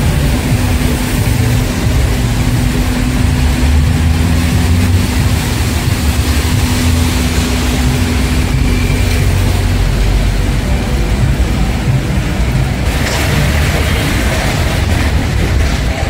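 City street traffic on rain-wet roads: car engines rumbling and the hiss of noise from the street. A steady low hum stops about nine seconds in, and a louder wash of noise comes through about thirteen seconds in.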